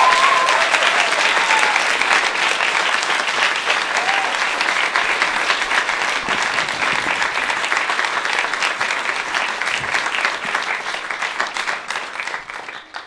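An audience applauding, with a couple of short calls rising over the clapping in the first few seconds; the applause thins and dies away near the end.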